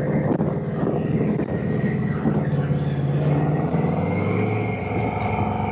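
Motorcycle engine running while riding, its note shifting in pitch and settling lower about four seconds in.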